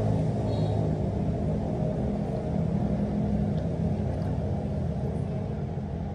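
A steady low rumble with a hum, easing off slightly near the end.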